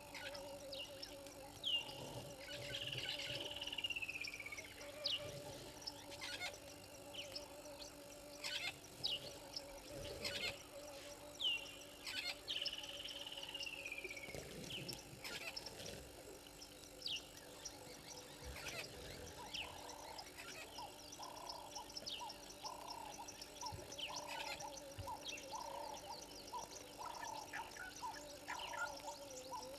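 Bush ambience of wild animal calls. A drawn-out descending bird whistle comes twice, with scattered short chirps and clicks, over a steady background drone. From about two-thirds of the way through, a regular pulsing call repeats a little over once a second.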